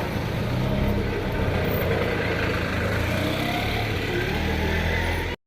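Motor vehicle engine running steadily.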